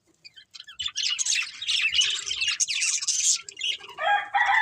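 Budgerigars chirping and chattering in a quick, busy run of high notes after a short quiet start. Near the end a lower, long held call with a steady pitch begins.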